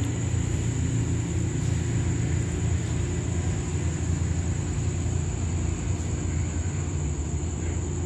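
SRT GE diesel-electric locomotive GE4022 running as it approaches hauling a freight train: a steady low engine rumble.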